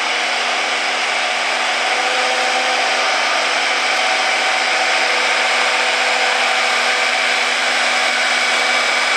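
International Harvester farm tractor's engine running hard under full load as it pulls a weight-transfer sled, a loud, steady drone.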